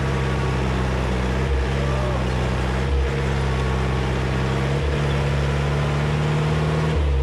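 Old jeep's engine running under load, a steady low note whose pitch shifts briefly a few times as the driver works the throttle. The jeep is trying to climb a wet, slippery dirt slope where the tyres struggle for grip.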